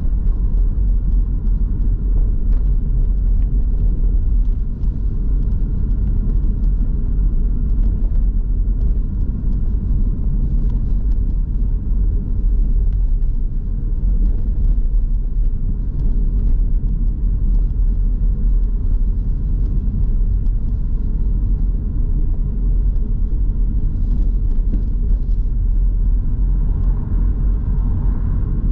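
Steady low rumble of a car driving on city streets: the filming car's own tyre and engine noise.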